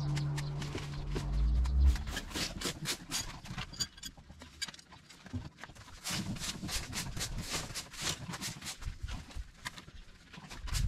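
Stiff broom sweeping debris off a concrete path: quick runs of short scratchy strokes. Before them, a steady low hum stops about two seconds in.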